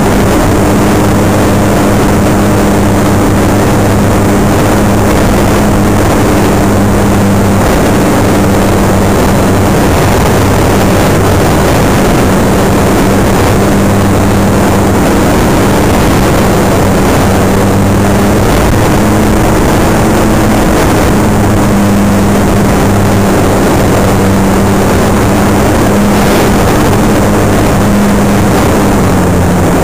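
Onboard sound of a Park Flite Super Cub RC plane in flight: its motor and propeller run with a loud, steady hum right at the camera. The pitch shifts slightly a few times.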